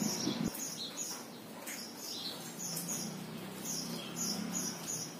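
Small birds chirping steadily in short high chirps, several a second. A single knock about half a second in as the camera is handled.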